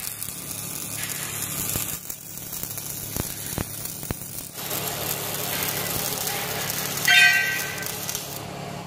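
MIG welding arc on steel with 1.2 mm wire, a steady crackling hiss with a few sharp pops around the middle. A brief, louder pitched sound rises over it about seven seconds in.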